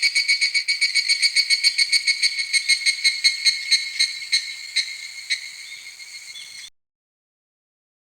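Insect calling in a rapid, even pulsed trill of about eight pulses a second on a high, steady pitch. It weakens over the last few seconds and then cuts off suddenly, leaving silence.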